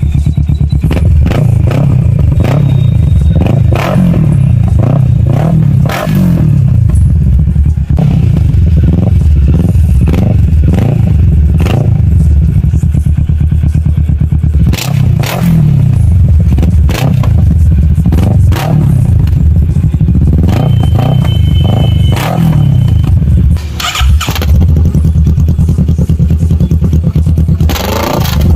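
Kawasaki Ninja 650's parallel-twin engine revved in repeated blips through several aftermarket slip-on mufflers in turn, its pitch rising and falling with each blip. Short sharp cracks come now and then.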